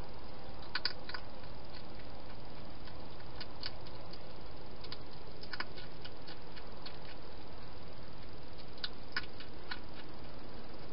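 Hedgehog eating from a bowl inside a plastic feeding box: irregular small clicks and crunches in scattered clusters, over a steady hiss.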